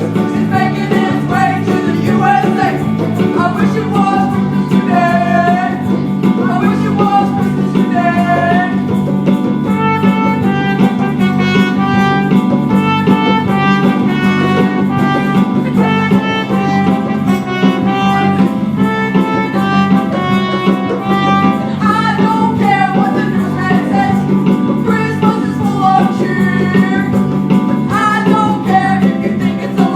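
Band music: an upbeat Christmas song played with a stepping melody line over steady low chords.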